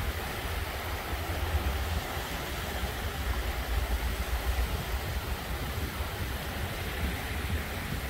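Small sea waves washing up onto a sandy beach: a steady surf hiss with a continuous low rumble underneath.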